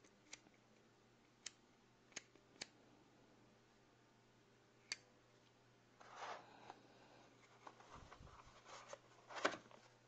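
Handling of a brass-cased Zippo windproof lighter and its metal collector's tin: a few sharp, separate metal clicks in the first half, then scuffing and a knock near the end as the lighter is set into the tin's insert.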